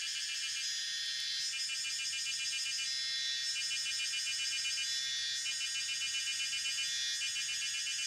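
A chorus of high-pitched insect calls: several rapid pulsing trills overlapping and shifting in pattern every second or two.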